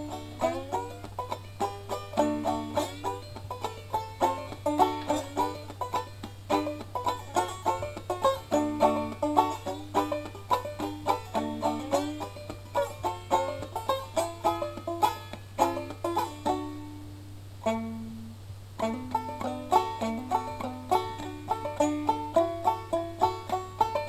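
Background banjo music in a bluegrass style: quick plucked picking throughout, with a short break a little past the middle, over a steady low hum.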